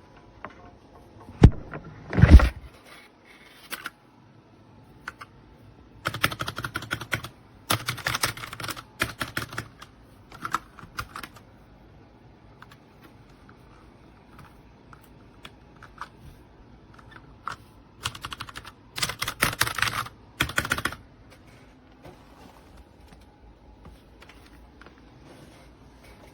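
Royal Kludge RK61 60% mechanical keyboard being typed on in two bursts of rapid key clicks, with scattered single keystrokes between them. A couple of louder knocks come about two seconds in.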